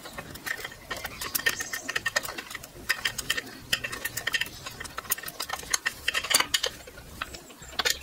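Irregular small metallic clicks and rattles as the rear brake pedal's pivot bolt is unscrewed by hand and the loose pedal parts knock together.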